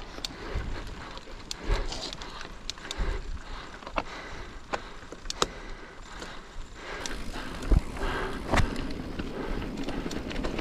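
Mountain bike being ridden over a rough trail, with irregular knocks, clicks and rattles from the bike and tyres over a steady rushing noise.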